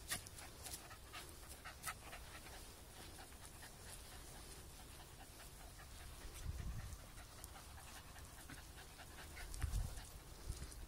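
Scottish Terriers panting softly in short, quick breaths, with a couple of low rumbles about six seconds in and near the end.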